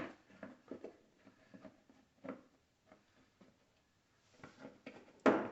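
Scattered light clicks and taps from small parts and tools being handled, with a louder knock about five seconds in.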